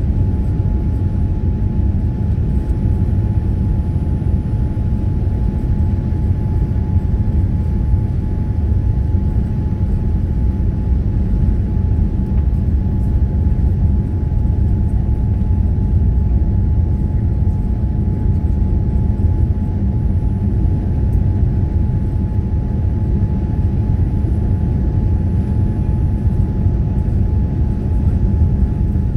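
Boeing 787-9 cabin noise heard from a window seat on descent toward landing: a steady deep rumble of engines and airflow with a thin steady whine above it.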